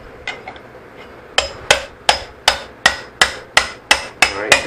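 Hammer striking a steel pickle-fork wedge driven into a Johnson 40 hp outboard's lower unit to pry the corroded gearcase apart. Sharp metallic strikes with a ringing clink begin about a second and a half in and repeat steadily, about three a second, roughly ten in all.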